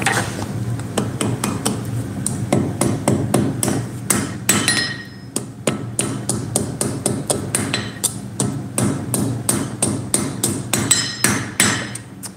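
Blacksmith's hand hammer striking hot iron on a steel anvil: steady forging blows, about three a second, with a short lull a little past the middle. A few blows leave the anvil ringing.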